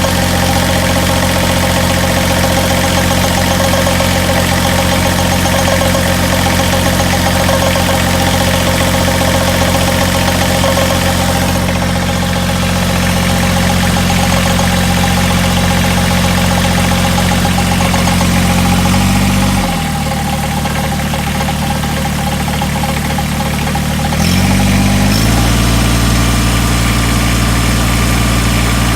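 Kubota BX23S tractor's diesel engine running at a steady speed, with a higher whine over it in the first part that fades out about halfway through. About two-thirds of the way in, the engine speed drops, then comes back up about five seconds later. This is the odd noise the owner hears when the tractor is tilted to the left.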